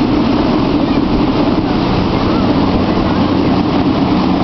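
Motorboat engine running steadily under load while towing a tube, with the rush of water from the wake behind it.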